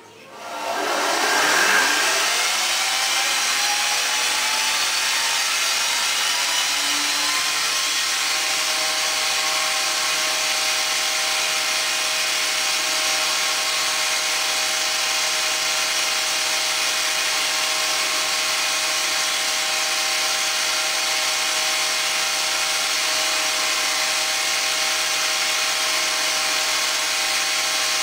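Porter spindle carver starting up. Its belt-driven spindle spins up with a whine that rises in pitch for several seconds, then settles into a steady high whine.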